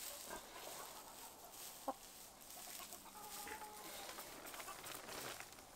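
Hens clucking softly, with one sharp click about two seconds in.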